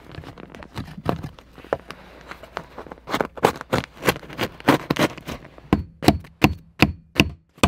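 Rustling and light knocks as an electrical switch box is set against a wooden stud, then a quick run of hammer blows nailing the box to the stud, growing louder and reaching about four blows a second near the end.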